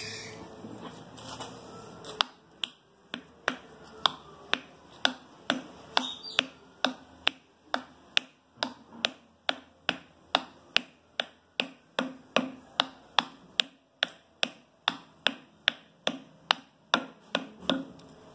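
Light, regular hammer taps, about two a second, on a wooden piece held against the hub of a plastic cooling fan. The taps drive the fan onto the shaft of a three-phase WEG pump motor.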